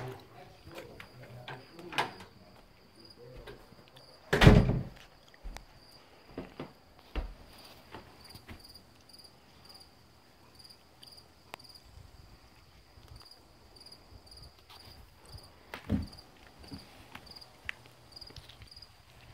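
Crickets chirping steadily, a high pulsing trill at about two chirps a second. A single loud thump, a door closing, about four and a half seconds in, with a few lighter knocks from handling.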